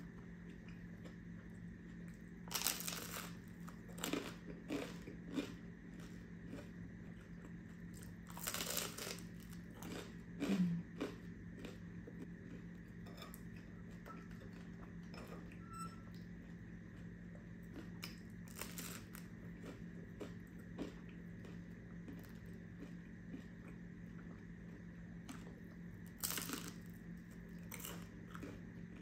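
Toasted black garlic bread being bitten and chewed, as a handful of separate crunches spread a few seconds apart, the loudest about ten seconds in.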